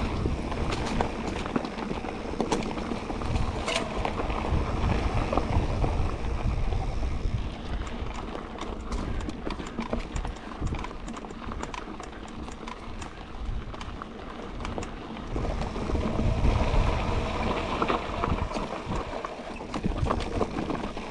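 Mountain bike descending a rough dirt and rock trail: tyres rolling and bumping over the ground while the bike rattles and clicks, under wind rumble on the microphone. It goes quieter in the middle for several seconds, then picks up again.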